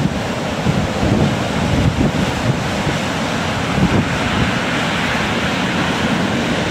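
Rough sea surf breaking and washing up a shingle beach, a steady loud rush, with wind gusting over the microphone that is more uneven in the first half.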